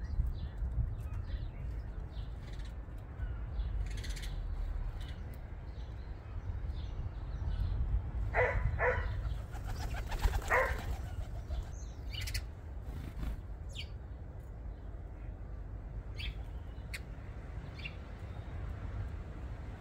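Garden birds at a suet feeder: short high chirps scattered throughout, with wing flaps and a cluster of louder calls about eight to eleven seconds in, over a steady low rumble.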